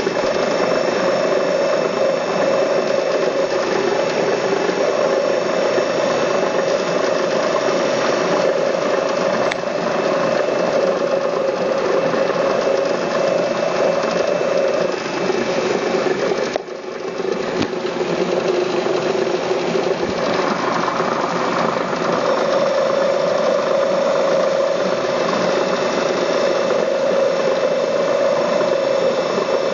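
Grinding machine running steadily under load, with a brief drop in the sound about halfway through.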